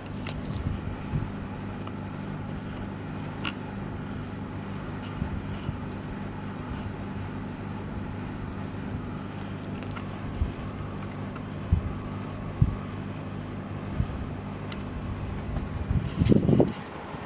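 Samsung 1.0 hp mini-split air conditioner running with a steady hum, broken by a few short knocks and a louder low rumble near the end.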